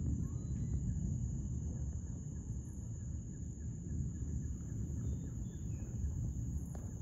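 Low, continuous rumble of distant thunder rolling on, over a steady high-pitched drone of night insects.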